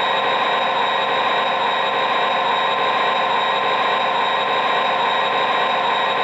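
MTH RailKing O-gauge SD45 model locomotive's onboard speaker playing its replaced diesel engine sound file, the simulated prime mover running steadily at a held throttle level.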